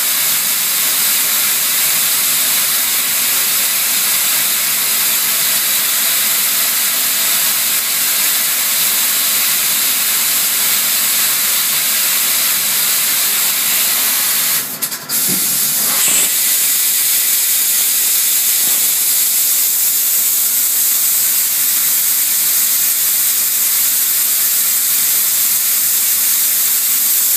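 CNC lathe running with coolant spraying, a steady loud hiss. About halfway through, the hiss briefly dips and there are a couple of short knocks as the tool turret indexes to a drill.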